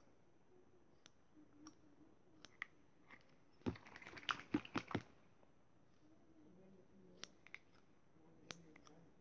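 Handling noise from a squishy rubber toy being moved about close to the microphone: scattered faint clicks, and a dense burst of rustling and clicking lasting about a second, about four seconds in.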